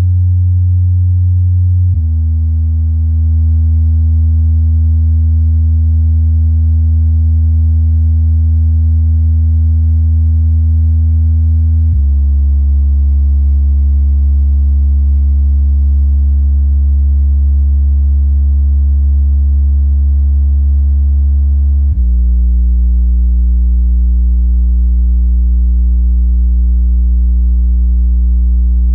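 MTX subwoofer driven by a bridged monoblock amplifier, playing loud, steady low bass test tones that jump to a new pitch about every ten seconds, stepping lower.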